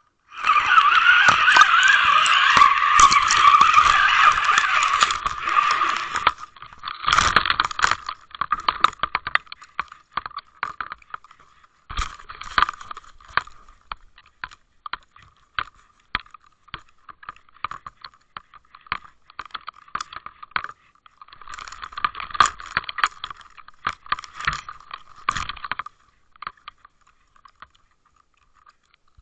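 Handling noise picked up by a Waterwolf underwater fishing camera's own microphone: a loud rushing scrape for about six seconds as it is pulled in, then irregular rubbing, scraping and clicks as the housing swings against clothing.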